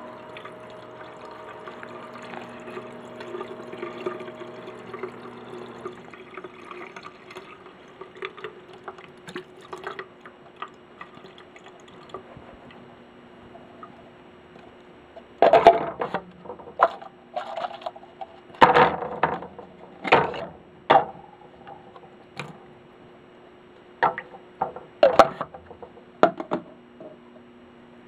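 Water sloshing and splashing in the reservoir of a Little Giant VCMA-20ULS condensate pump, over a steady hum. A run of loud, sharp splashes and knocks comes in the second half.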